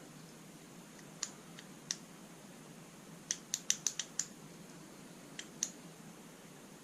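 Small sharp clicks from handling the parts of a wooden Houdini puzzle lock: a couple of single clicks, then a quick run of about six in a row around the middle, then two more near the end.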